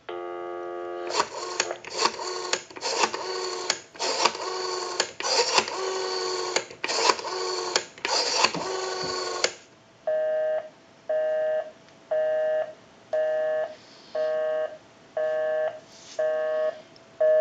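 Dial tone sounding for about a second, then a Western Electric 500 rotary telephone's dial pulsing out a number in clicking groups as the dial winds back after each digit. From about ten seconds in, a busy signal: steady two-tone beeps about once a second, showing the dialled line is engaged.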